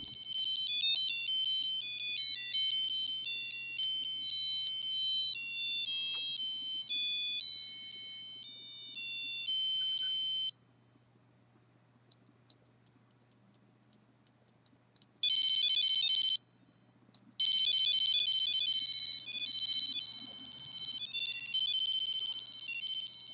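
A micro:bit playing a techno-pop tune as fast, beeping electronic notes from its small speaker, all high-pitched. The tune stops about ten seconds in. A run of short clicks follows and speeds up, then comes a loud held tone of about a second. After a short gap the tune starts again.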